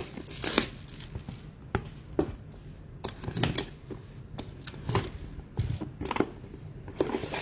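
A sealed trading card box and its wrapping being opened and the cards handled: irregular crinkling, tearing and rustling of packaging and card stock, with a dozen or so sharp crackles.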